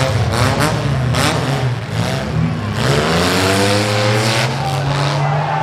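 Six-cylinder demolition derby car engines revving hard, their pitch rising and falling, with a louder surge of engine noise from about three seconds in.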